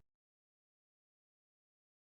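Complete silence.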